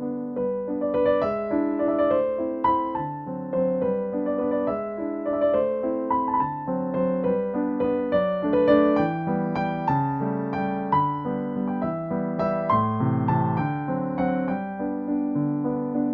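Background piano music: a gentle keyboard melody of struck notes over sustained chords.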